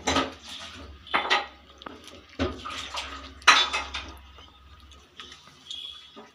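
Stainless steel bowl clanking and clattering, several sharp knocks with a short metallic ring.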